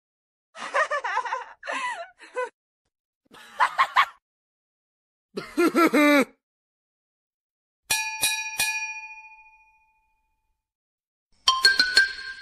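Edited-in sound effects over dead silence: three short bursts of a pitch-bending, voice-like effect, then three quick bell-like dings that ring out and fade. Background music starts near the end.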